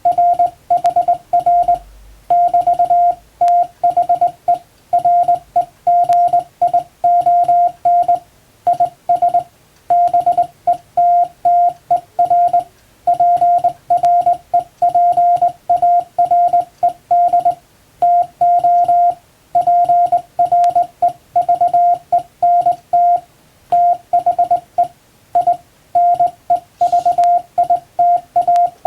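Morse code hand-sent on a straight key: a single steady beep switched on and off in short dots and longer dashes with gaps between letters and words, spelling out plain English text.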